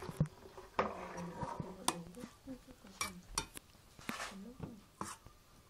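Metal spoon stirring and scraping in a metal bowl, with a string of sharp clinks of spoon against the bowl's side.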